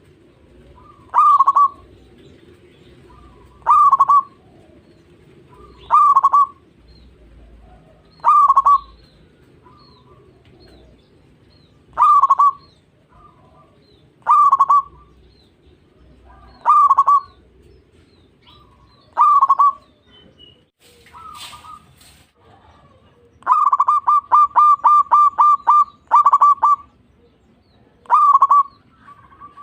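Zebra dove (perkutut) cooing: short, loud calls repeated about every two to two and a half seconds. About three-quarters of the way through comes a quick run of about ten notes, then the single calls resume.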